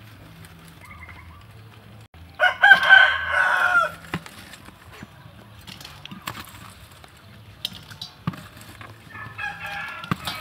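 A rooster crows once, about two seconds in, a call lasting about a second and a half. A few light clicks follow, from meatballs and utensils being handled in a steel bowl.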